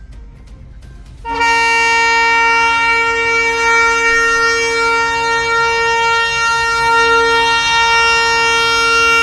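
Diesel locomotive's air horn sounding one long, steady blast of two notes together, starting about a second in.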